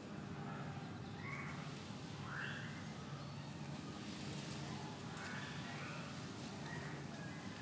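A few short, harsh bird calls, spaced a second or more apart, over a steady low hum.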